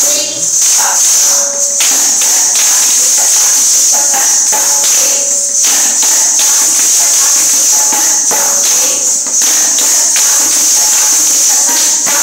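Ghungroo ankle bells on several Kathak dancers jingling continuously as they stamp out footwork in the 14-beat Dhamar cycle, with a constant high shimmer and frequent foot strikes, over music with short held notes.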